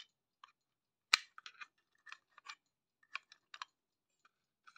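Sharp clicks and scraping taps as a press-fitted circuit board is prised and worked loose from an old power supply's case. There is one loud click about a second in, then a run of smaller clicks.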